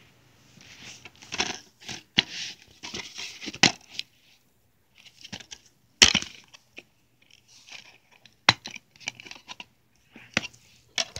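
Plastic DVD case being handled and opened, rustling with sharp clicks. A loud snap about six seconds in as the disc is pulled off the case's centre hub, then a few more clicks and taps of plastic.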